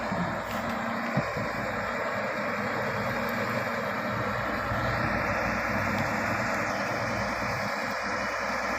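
Shantui SD16 bulldozer's diesel engine running steadily, with a single sharp knock about a second in.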